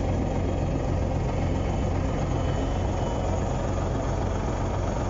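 Bulldozer's diesel engine running steadily with a deep low hum, heard from inside the machine's cab.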